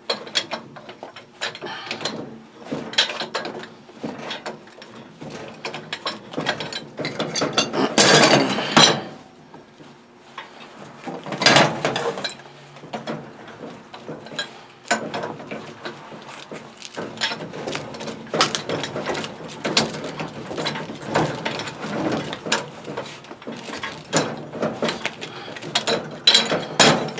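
Metal tools working a threaded iron pipe union loose: a long run of rapid ratchet-like clicking and scraping, with louder clanks about 8 and 11 seconds in.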